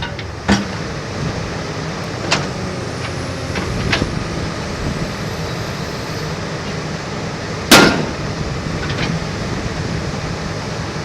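Komatsu PC228USLC-3 hydraulic excavator's diesel engine running steadily, with sharp knocks about half a second in, at around two and four seconds, and a louder one near eight seconds.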